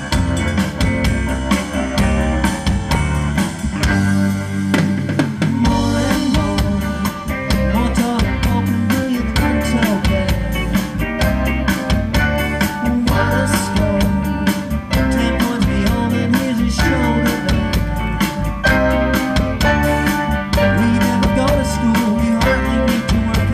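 Rock band playing live at a sound check: drum kit with kick and snare under electric guitar and bass, without vocals.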